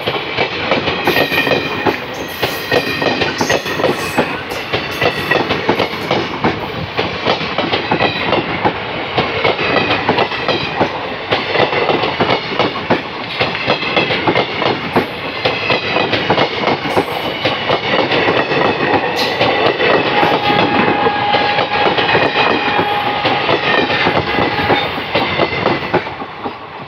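Loud passing of Indian Railways ICF passenger coaches at close range, their steel wheels and bogies clattering steadily on the rails.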